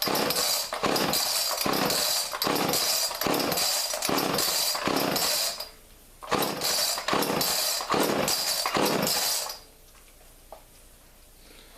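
1985 Homelite XL two-stroke chainsaw running at high revs with a regular surging, dropping away briefly about halfway, then cutting out near the end.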